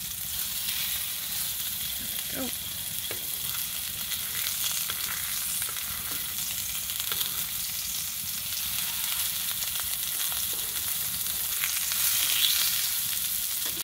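Sausage patties sizzling in a frying pan, a steady frying hiss, with light clicks of metal tongs as the patties are turned.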